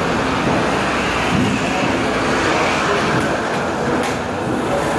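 Steady gym machine noise, an even whooshing rumble like treadmills and ventilation running, with a few light clicks between about three and four seconds in.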